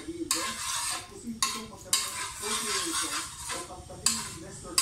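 Metal spoon stirring and scraping in a wok of hot oil, with several sharp clinks against the pan over a steady sizzling hiss.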